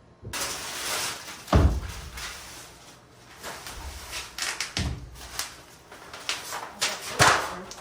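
A window air-conditioning unit being shifted and settled into its wall opening: scraping and rustling, with three heavy thumps and a few sharper knocks.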